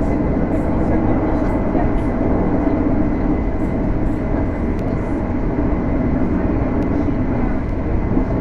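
Passenger train running at speed, heard from inside the carriage: a steady, loud rumble of wheels and track noise with a thin, faint high whine over it.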